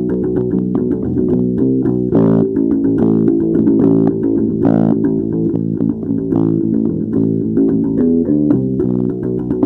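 Music played on plucked strings, a guitar with bass guitar, in a steady run of quick notes.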